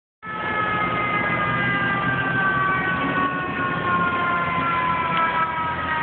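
Fire truck siren sounding one long tone that slowly falls in pitch, over the low rumble of street traffic.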